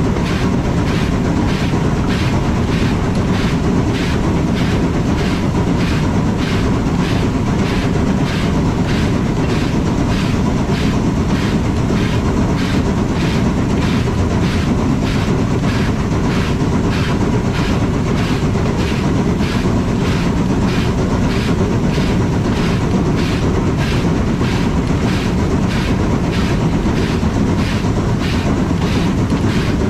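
Rack steam locomotive of the Furka Steam Railway running on rack track, with a steady, even beat about twice a second over the constant rumble of the running gear.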